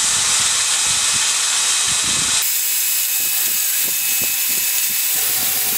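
Electric drill running in a drill-press stand with a sanding disc in its chuck, sanding a board pressed against the spinning disc. The loud, steady grinding starts abruptly.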